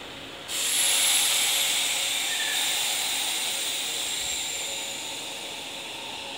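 Sudden loud hiss of compressed air from a stopped Nishitetsu electric train, starting about half a second in and fading slowly over several seconds.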